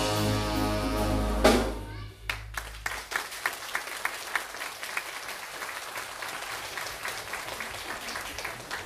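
A big band's brass holds its final chord and cuts off on a last accent about a second and a half in; the audience then applauds, the clapping thinning toward the end.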